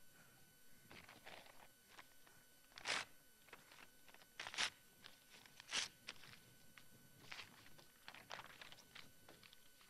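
Faint rustling of paper being handled at a table: a string of short rustles, the three loudest about three, four and a half and six seconds in.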